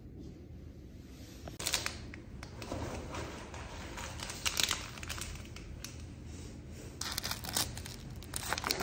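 Irregular crinkling and rustling noise that starts about one and a half seconds in and goes on with many small sharp crackles.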